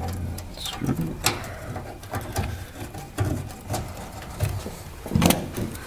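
Hands fitting a pickup's tail-light assembly back into its opening: a run of small clicks, knocks and rustles, with a sharper knock about five seconds in.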